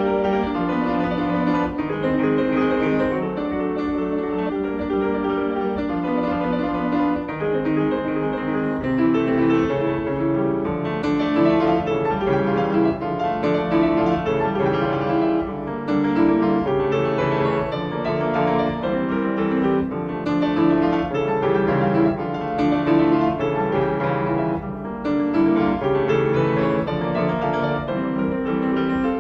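Background music: a piano piece with many notes played in a continuous run.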